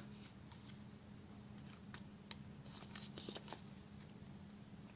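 Faint handling sounds: a few light rustles and soft taps as a small paper feature card and the camcorder are turned over in the hands, over a low steady hum.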